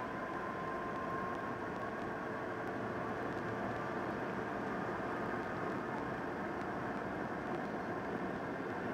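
Steady cabin noise inside a Boeing 717 taxiing: an even hum and rush from its rear-mounted Rolls-Royce BR715 turbofans at low power, with a faint high whine.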